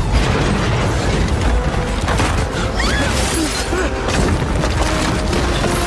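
Film disaster sound effects of a dam being destroyed: a loud, continuous low rumble with crashing and breaking debris, and music faintly underneath.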